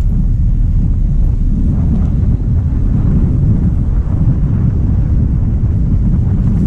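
Wind buffeting the microphone of a mountain biker's action camera at downhill speed: a loud, steady low rumble.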